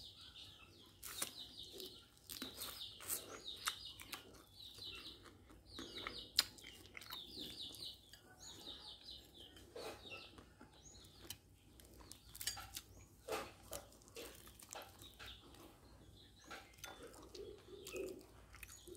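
A bird chirping in quick repeated trills, busiest through the first half. Sharp clicks of chopsticks and a metal spoon against a ceramic rice bowl come throughout, the loudest about six seconds in.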